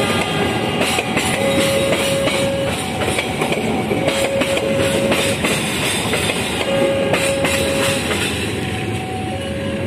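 Train of stainless-steel passenger carriages rolling slowly past, wheels rumbling and clattering over the rail joints. Over it a level-crossing warning alarm sounds a steady tone of about a second, repeating every two to three seconds.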